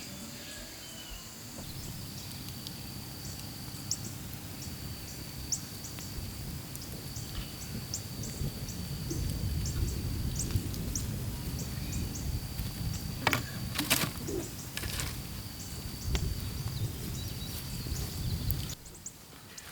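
Outdoor ambience: a steady high-pitched buzz that drops out and returns, short high chirps, and a low rumble that swells toward the middle. The sound changes abruptly near the end.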